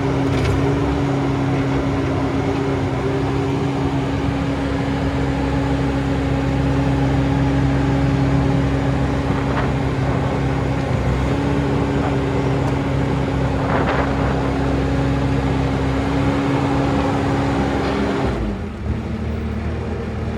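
Bobcat T590 compact track loader's diesel engine and hydraulics running steadily while the bucket is lifted and tipped out, with a held hydraulic whine. Near the end the pitch and level drop.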